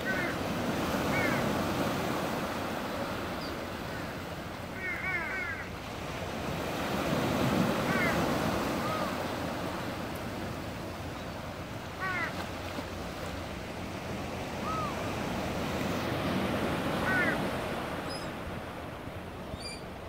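Sea surf washing in slow swells, with gulls giving short calls over it, now singly and now in quick runs of three or four.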